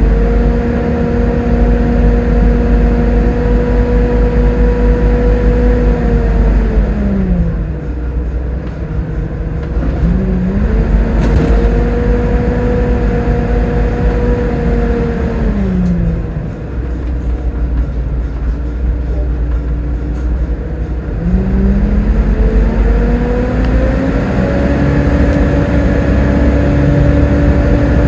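Volvo B7TL bus on the move: its straight-six diesel and drivetrain run over a heavy low rumble, with a hoover-like whine whose pitch drops as the bus slows twice and climbs again each time it picks up speed.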